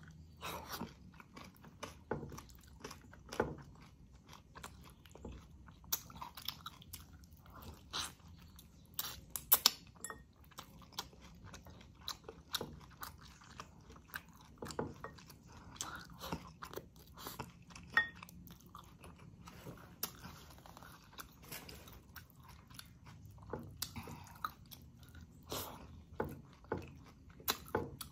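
Close-up chewing of a person eating chicken and mustard greens in coconut-milk sauce with her fingers: short clicks and mouth sounds at an irregular pace.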